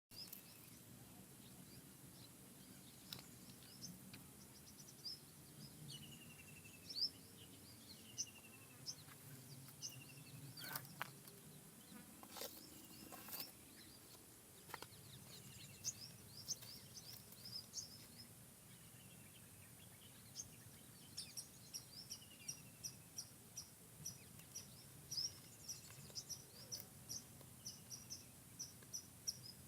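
Birds chirping and calling over a faint, steady forest background: short high chirps throughout, a short falling whistled note repeated every second or so in the first half, and a quick run of chirps about two a second through the second half.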